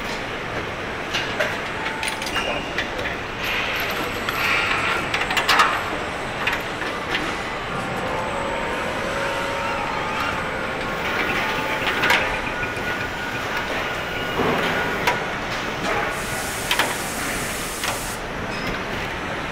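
Car assembly plant floor noise: a steady machinery din with scattered metallic clicks and clanks, and a brief high hiss near the end.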